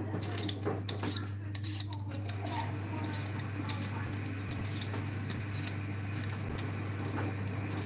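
Vegetable peeler scraping strips of skin off a raw potato in quick, repeated short strokes, over a steady low hum.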